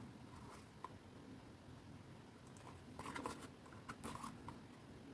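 Faint rustling of card being handled and pressed into place, with a small tap about a second in and two brief rustles later.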